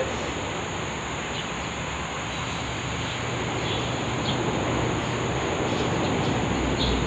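Steady outdoor background: an even noise bed with a constant high insect drone, and a few faint short chirps scattered through it.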